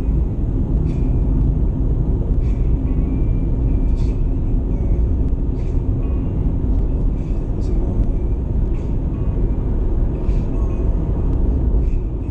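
Steady low rumble of road and engine noise inside a moving car's cabin at highway speed, with faint brief ticks at irregular intervals.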